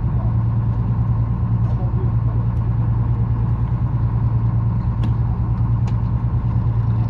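Charter fishing boat's engine idling, a steady low drone, with a few faint clicks about five to six seconds in.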